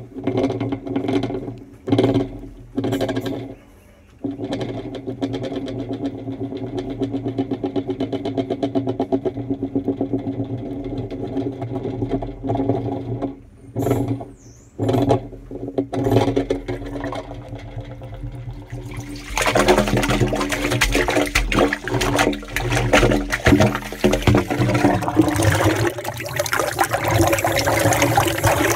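A machine hums steadily with a fast pulsing, then about two-thirds of the way in a loud rush of water comes through the sewer pipe and keeps flowing: the blocked sewer has cleared and is draining into the main at the boundary shaft.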